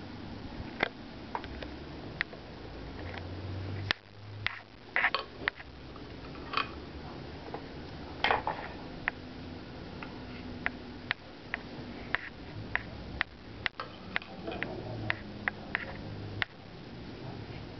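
Light handling noise: scattered sharp clicks and taps, with a few short rustles, over a low steady hum.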